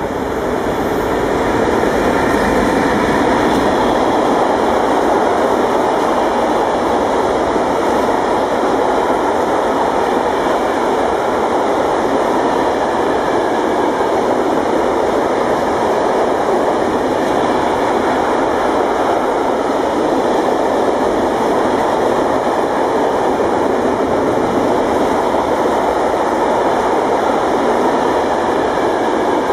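Electric train passing close by at speed: a loud, steady rush of wheels on rails that builds over the first couple of seconds, then holds.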